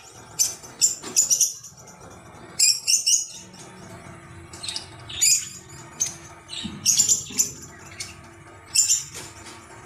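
Birds chirping in short bright bursts, repeated several times, over a faint steady background.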